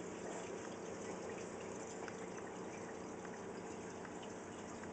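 Aquarium water trickling and bubbling steadily, with a few faint light ticks here and there.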